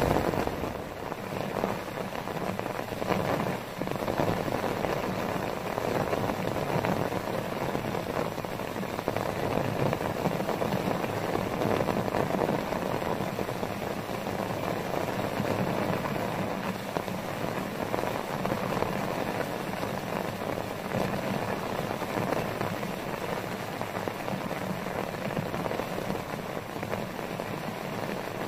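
Heavy rain falling steadily on a tarp shelter and the surrounding grass, an even hiss with no breaks.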